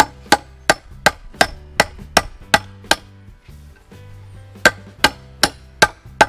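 A hammer drives carriage bolts through the wooden legs of a kit picnic table, striking the bolt heads. There are about nine evenly spaced blows at roughly three a second, a pause of over a second, then five more blows.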